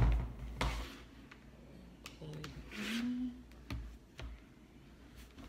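Small clicks and knocks of a charger plug and adapter being handled and pushed into a laptop's charging port, with a sharp knock at the start. A brief hummed 'mm' and a rustle come about halfway through.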